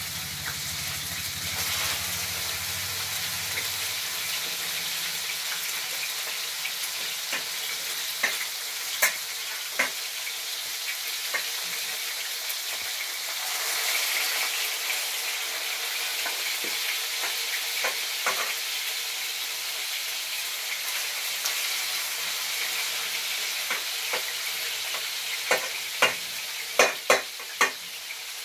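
Chicken pieces frying in a metal pan, a steady sizzle that swells about halfway through as more pieces go in. Scattered sharp clinks of a metal fork against the pan and steel bowl come through it, several close together near the end.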